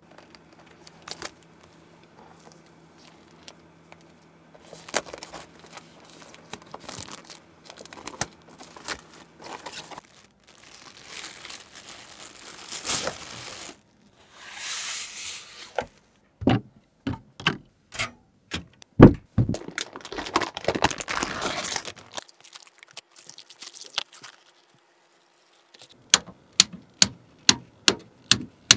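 Close-up handling sounds of computer hardware and its packaging: crinkling and tearing, scattered clicks and sharp knocks. Near the end comes a rapid, even run of clicks, about three a second.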